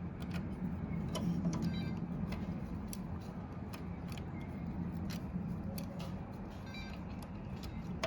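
Small scattered clicks and light metallic ticks of a screwdriver and small parts being handled as a short screw is fitted, with a couple of brief runs of rapid ticking, over a steady low hum.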